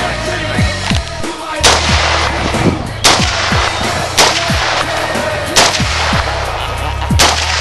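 Five single shots from an M4-style carbine, fired one at a time about every second and a half, over hip-hop music with a deep bass beat.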